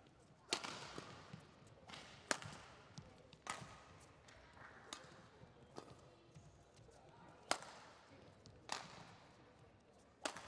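Badminton rackets striking a shuttlecock in a rally: sharp hits about one to two seconds apart, seven in all, each with a short echo.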